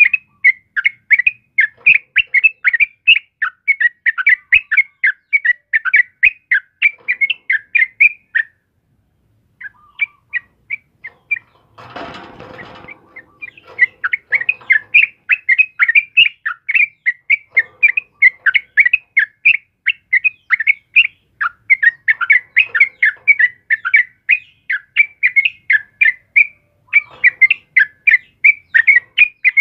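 Yellow-vented bulbul (trucukan) singing a dense, rapid string of chirps. It breaks off for about a second near eight seconds in, and there is a short rustling burst about twelve seconds in.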